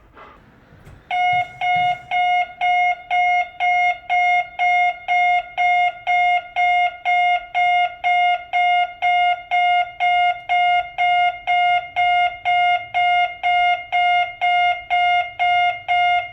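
Nikko Denki Type 77 contactless (solid-state) reversing buzzer, the kind fitted to buses, sounding a loud, even, pulsing buzz of about two beeps a second. It starts about a second in and warns that the vehicle is backing up.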